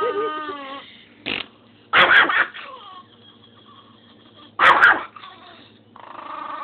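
Very old dog wheezing: a wavering, whine-like sound fades out in the first second, then two loud, noisy wheezes come about two seconds in and just under five seconds in, with a shorter one before them.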